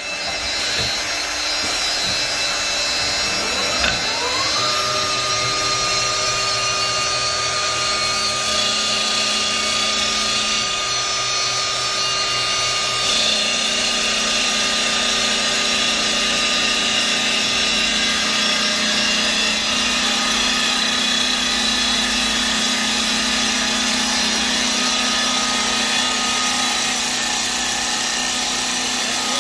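Automatic wood lathe running as its cutter turns a wooden spindle blank: a steady, loud, noisy machine rush with a motor whine under it. About four seconds in, a motor whine rises in pitch and then holds steady.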